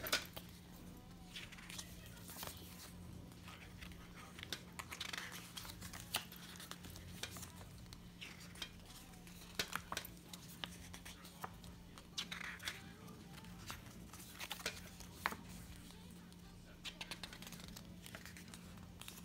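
Paper pages of a CD booklet rustling as they are turned and handled, with scattered sharp clicks and taps, the loudest right at the start as the plastic CD jewel case is handled. A faint steady hum sits underneath.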